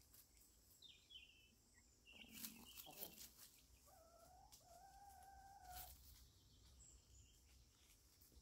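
Faint chicken sounds: a few short high cheeps, then a longer two-part call about four seconds in, lasting nearly two seconds. A few soft taps and rustles come from birds scratching and pecking in dry leaf litter.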